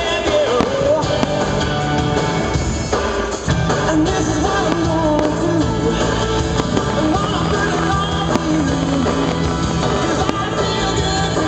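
Rock and roll song with singing; the bass and beat fill out about three and a half seconds in.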